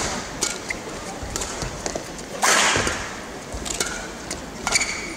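Badminton rally: sharp racket hits on the shuttlecock and players' shoes squeaking and stamping on the court floor, with a louder rush of noise about two and a half seconds in.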